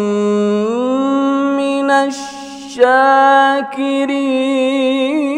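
A man reciting the Quran in the melodic, drawn-out competition style, holding long sung notes on one pitch and then bending into wavering ornamented turns. The line breaks once about two seconds in with a short hiss before the next long note.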